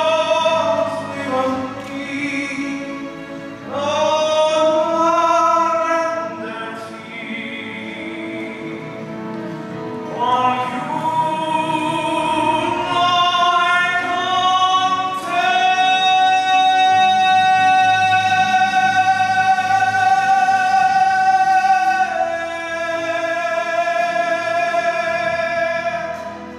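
A man singing a slow song solo, operatic style, into a handheld microphone. A little past halfway he holds one note for about six seconds, then a lower note, and his voice trails off near the end.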